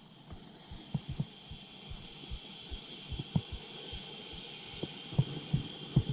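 Steady hiss of water running into a hot-water boiler system through its feed as the system refills, growing louder about two seconds in, with scattered low knocks at irregular intervals.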